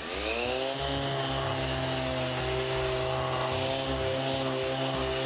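Bosch random orbit sander with a 240-grit disc switched on, its motor spinning up to speed in the first second, then running steadily as it sands a wooden board. The dust extractor it is hooked to runs along with it.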